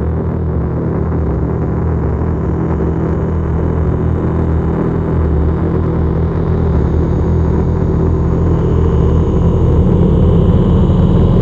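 Deep drone sound effect for horror: a dense low rumble with several steady low tones, slowly swelling in loudness.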